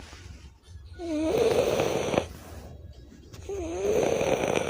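French bulldog snoring in its sleep: two snores, each about a second long, with a wavering tone through them.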